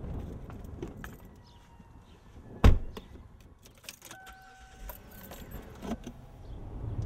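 A car door shuts with a loud thump about two and a half seconds in, followed by keys jingling and clicking at the ignition. A steady electronic chime sounds for about two seconds while the key is turned and the automatic gear selector is clicked into gear.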